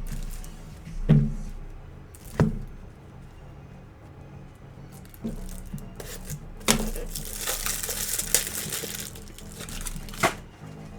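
Hands handling trading card boxes and packs over background music: several sharp knocks, and about two thirds of the way in a few seconds of crinkly rustling of packaging.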